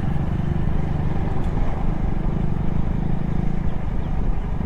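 Motorcycle engine running steadily while under way, with the low rumble of wind and road noise.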